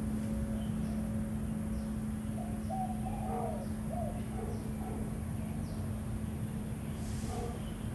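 Birds calling: a run of short arched calls, with faint short high chirps repeating about once a second, over a steady low hum.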